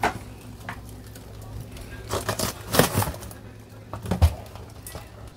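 Rummaging in a packed freezer: plastic bags of frozen food and a cardboard frozen-pizza box being shifted and pulled out, with rustles and knocks and a low thump about four seconds in. A steady low hum of the refrigerator runs underneath.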